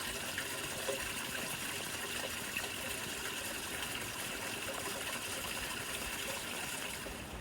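Steady rain falling, with a few scattered taps of single drops.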